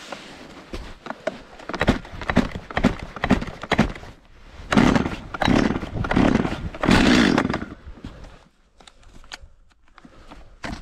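Cold Stihl MS-270 Farm Boss chainsaw being pull-started below freezing: repeated yanks on the recoil starter cord, the two-stroke engine turning over without catching into a run. The strongest pulls come in the middle, in four long strokes, and the sound eases off near the end.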